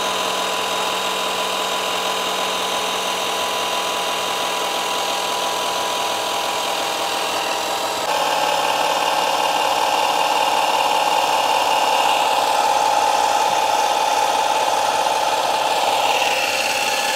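12 V electric hydraulic car jack's motor and pump running steadily as it raises a car. About eight seconds in it gets louder and a little lower in pitch.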